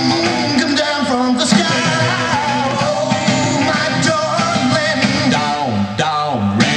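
A rock and roll song with singing over guitar and a steady rhythm.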